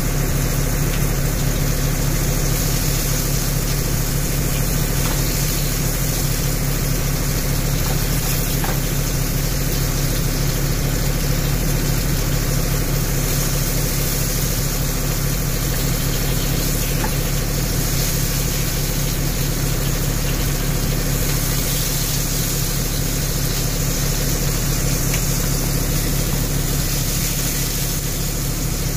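Tenderloin steak grilling in the pan: an even, steady hiss over a low hum.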